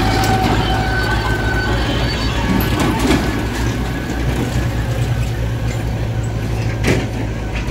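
Diesel farm tractor engines running steadily, a low even drone, as a John Deere tractor pulls a laden trolley away; a short knock about seven seconds in.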